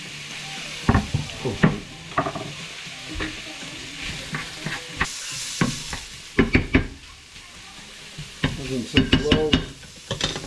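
Sliced paua, onion and garlic sizzling in a hot nonstick frying pan, with a wooden spoon scraping and knocking against the pan as it is stirred in irregular clusters.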